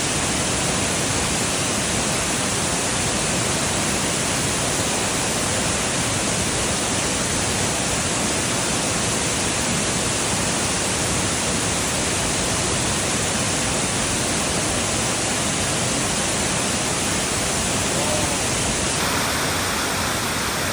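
Waterfall: a loud, steady rush of falling water, its tone shifting slightly near the end.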